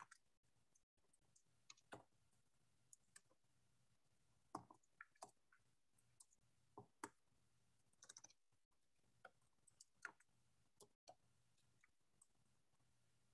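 Near silence with faint, irregular clicks from a computer at the desk, some single and some in quick little clusters, over a faint steady low hum.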